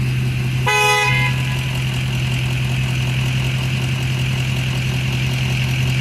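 Ford pickup truck's engine running with a steady hum; a single short horn toot sounds just under a second in.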